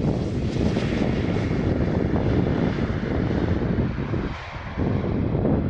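Jet airliner passing low on landing, its engine noise heard over wind buffeting the microphone; the engine hiss is strongest in the first second or two.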